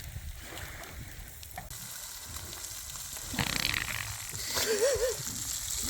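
Food sizzling in a frying pan, a steady hiss, with a brief louder noise about three and a half seconds in and a short hummed voice near five seconds.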